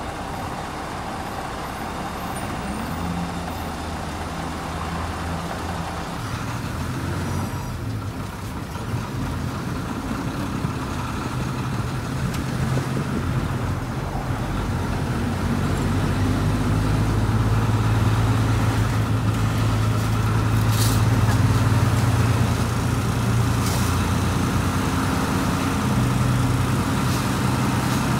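Hino AK city bus engine with road and traffic noise, first heard from the roadside as the bus comes in, then from inside by an open window as it drives off. From about halfway through the engine note grows louder and steadier as the bus gathers speed, with a few sharp rattles near the end.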